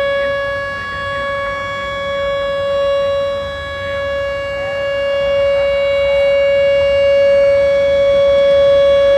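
Outdoor civil defense siren sounding a tornado warning: one steady wailing tone at a fixed pitch, its loudness swelling and dipping and growing louder toward the end.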